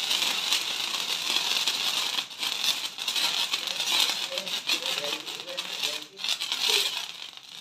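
Handheld sparklers burning, a dense fizzing crackle of many tiny sputtering pops. Faint voices are underneath in the second half.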